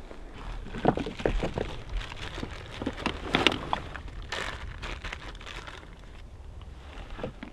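Irregular crinkling and rustling of a clear plastic bag being handled.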